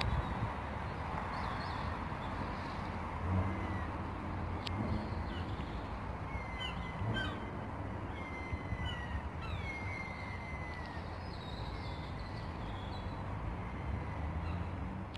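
Several short, high bird calls that slide downward, clustered between about six and ten seconds in, over a steady low outdoor rumble.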